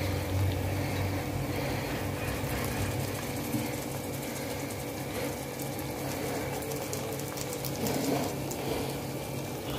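Onion-tomato masala with dry spices and lemon juice cooking in a pan, sizzling and crackling softly over a steady low hum.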